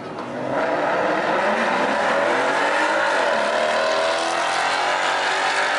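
2015 Ford Mustang GT's 5.0 Coyote V8 through Roush axleback exhausts, run at full throttle down the drag strip; it gets loud about half a second in, and its pitch climbs steadily as the car accelerates.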